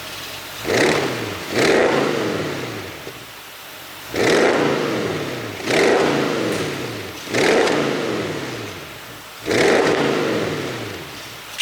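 Audi S7's 4.0 TFSI twin-turbo V8 revved in about six sharp throttle blips, the revs falling away after each one. The engine runs an ECU tune set up to make the exhaust pop on the overrun.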